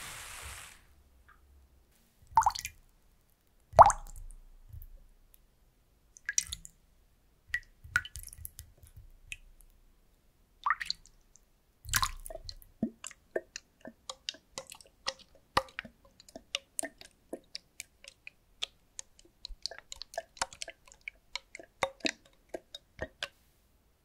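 Water dripping and splashing at irregular intervals. The first half has a few separate wet splashes. From about halfway in, small drops fall quickly and unevenly into a shallow bowl of water, each one a short plop.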